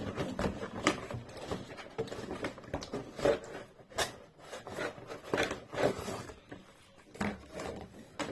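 Handling noise from unpacking a Nerf blaster: irregular clicks, taps and rustles of plastic parts and packaging being moved about.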